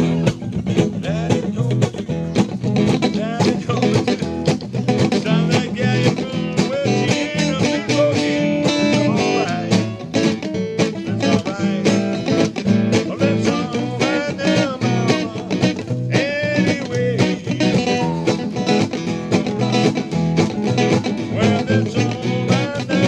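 Acoustic guitar music played live, steady and continuous, with a voice singing over it.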